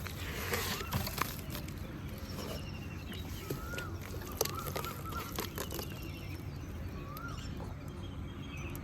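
Shallow water trickling over tiny pebbles, a steady wash with many small drips and clicks. Birds call in the background with short rising-and-falling whistles and quick trills.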